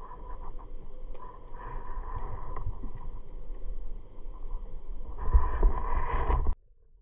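Muffled underwater noise picked up by a camera in its housing: a low rumble with faint scattered clicks. It gets louder about five seconds in as the diver moves off, then cuts off abruptly near the end.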